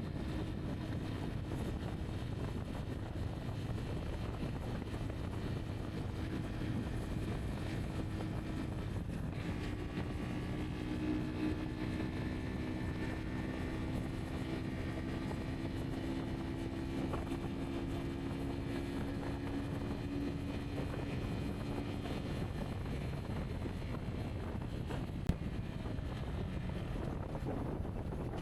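Rieju Aventura 125's single-cylinder 125 cc engine running at a steady speed while riding, with wind buffeting the microphone. The engine's steady hum fades under the wind about two-thirds of the way through.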